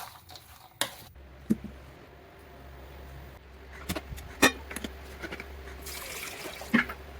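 Kitchen food-preparation sounds: a series of sharp knocks and clinks of utensils or dishes over a steady low hum, with a short hissing rush shortly before the last loud knock.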